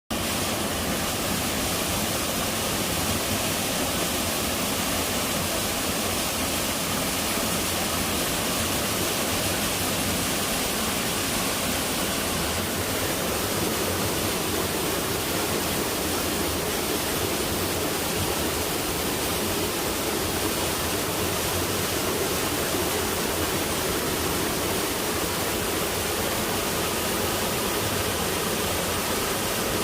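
Hot-spring waterfall pouring steadily, a constant rush of falling water that grows a little deeper about halfway through.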